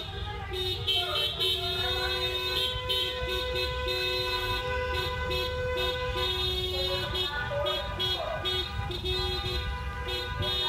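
Several car horns honking together at different pitches. One sounds in short repeated toots throughout, and another is held in one long blast for a few seconds in the middle.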